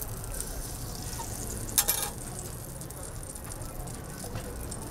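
Food-stall cooking sounds: a steady low background hum, with one brief sharp clatter of utensils about two seconds in.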